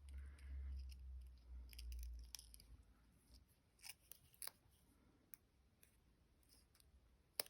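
Faint handling of die-cut card pieces on a craft table. A low rumble of handling and rustle lasts about two and a half seconds, then a few small, sharp clicks follow, the sharpest just before the end.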